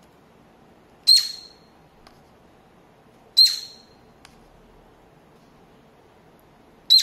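Cockatiel giving three short, sharp chirps: one about a second in, one about three and a half seconds in, and one near the end.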